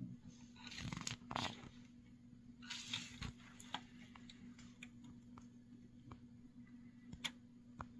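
Faint rustling and small clicks of fingers handling and twisting thin stripped wire ends together, loudest about a second in and again around three seconds, over a faint steady low hum.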